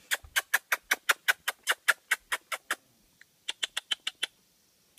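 A person's mouth-made imitation of a chipmunk's chipping call: sharp, high chips repeated about seven times a second, used to summon a chipmunk. The chips stop a little under three seconds in and resume more faintly for about a second.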